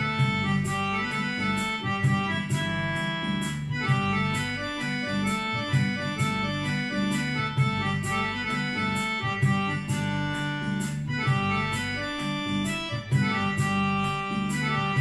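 Yamaha PSR-I series portable keyboard playing a slow melody in sustained notes over a steady electronic drum beat.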